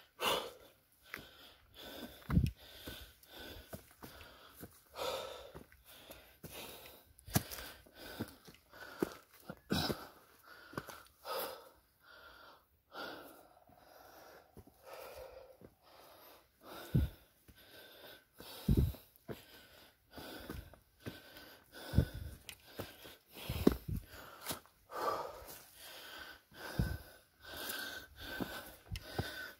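Heavy, labored breathing of a person climbing steep stone steps, a breath every second or two, out of breath from the climb. A few short low thuds, such as footfalls, come between the breaths.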